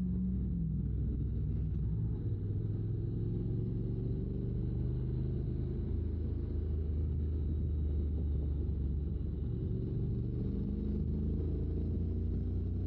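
Honda NC750X DCT motorcycle's parallel-twin engine running under way at road speed, with wind rumble. Its note drops about half a second in, then runs fairly steady.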